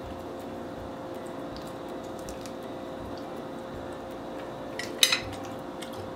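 Wooden chopsticks set down on a ceramic plate with a sharp double clack about five seconds in, among faint eating clicks over a steady room hum.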